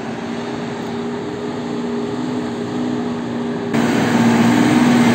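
Diesel engine of a loaded tipper truck labouring uphill on a gravel road as it approaches, a steady hum growing louder, with a sudden jump in loudness near the end as it comes close.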